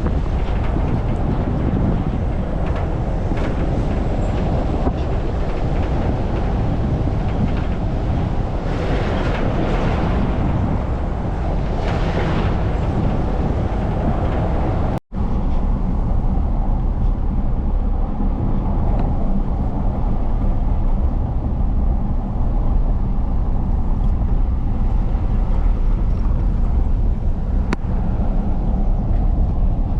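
A car driving along a road: steady engine and road rumble with wind buffeting the microphone. The sound cuts out for an instant about halfway through.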